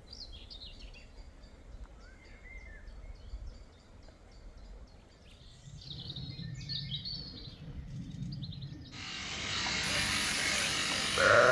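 Small birds chirping and singing over a low outdoor rumble. About nine seconds in, a louder steady hiss comes in, and a sheep begins to bleat at the very end.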